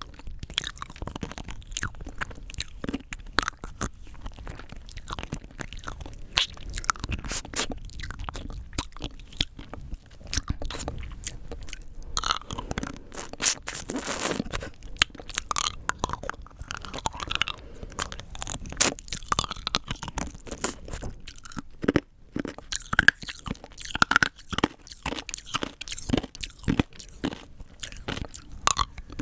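Rock candy crunched between the teeth and chewed: a dense, irregular run of sharp cracks and crunches.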